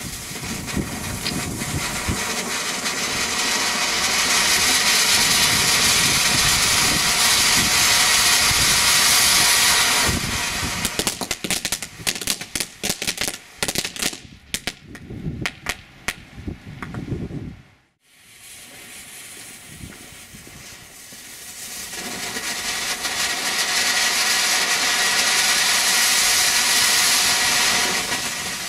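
Lesli Vegas Volcano firework ground fountains burning: a loud rushing hiss of sparks swells up over the first few seconds, then gives way to rapid crackling for several seconds. After a brief near-silence a second fountain starts and its hiss swells up again.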